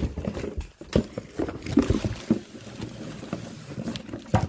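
Handling noise from a phone being moved about close to the microphone: irregular knocks, bumps and rubbing, with a sharp knock about a second in and another near the end.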